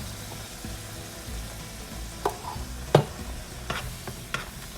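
Onion paste frying in oil in a pan with a faint sizzle, as a spoon stirs it and knocks sharply against the pan a few times in the second half, once loudly about three seconds in.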